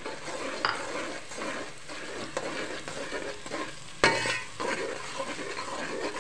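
A metal slotted spoon stirring and scraping spices through sizzling oil in a metal pot, with a sharp clank of the spoon against the pot just after four seconds. The ground spices are being fried into the masala.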